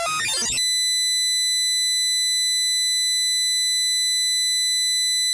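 Speaker-cleaning tone played through a phone's loudspeaker. A jumble of mixed tones breaks off about half a second in, and a single steady, high-pitched tone with a buzzy edge takes over and holds at constant level.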